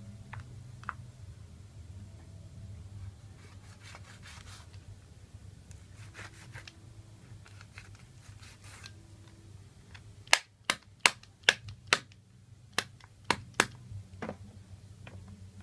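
Kitchen knife chopping raw chicken feet on a wooden cutting board: soft scraping and rubbing at first, then about nine sharp chops over some four seconds.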